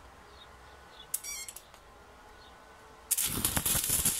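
Stick-welding arc from a 1.6 mm rod electrode on an Einhell BT-IW 100 inverter set to 40 A, on sub-millimetre steel sheet. Mostly quiet at first, with one short hiss a little over a second in. About three seconds in the arc strikes and crackles and sputters loudly.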